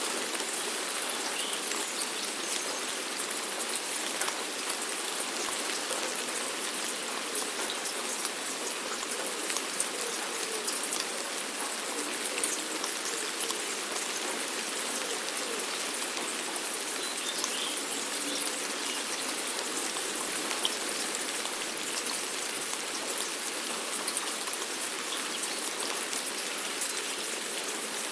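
Steady rainfall, a constant hiss of rain with many small drop ticks scattered through it.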